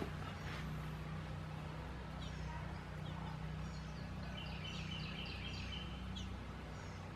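Small birds calling outdoors with short, high, repeated chirps, and a fast trill for about two seconds past the middle, over a steady low hum.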